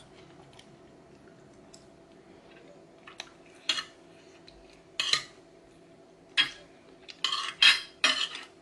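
Metal spoon scraping and scooping food on a glazed ceramic plate: about seven short scrapes starting about three seconds in, coming closer together near the end.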